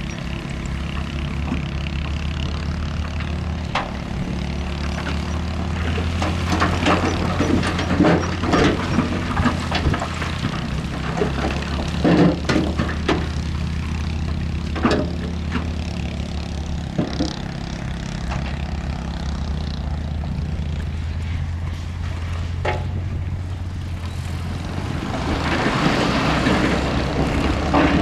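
A heavy diesel construction machine runs steadily, with frequent sharp clanks and knocks as it works gravel and rock. A louder rushing noise swells near the end.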